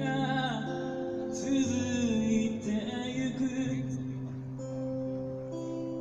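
A man singing to his own acoustic guitar. The sung line ends about three and a half seconds in, and the guitar rings on alone.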